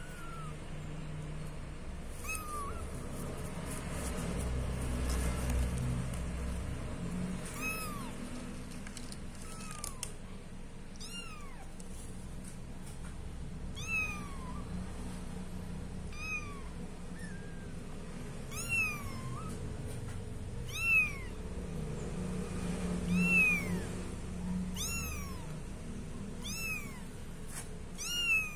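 Very young kittens mewing: a series of short, high-pitched mews, each rising and falling in pitch, one every second or two.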